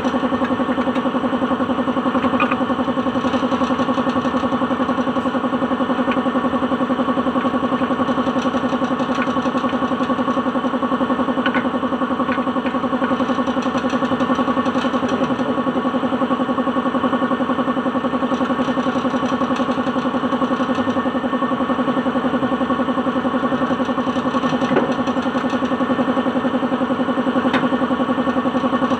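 Suzuki DA16's engine idling steadily, an even hum that does not change in pitch or level.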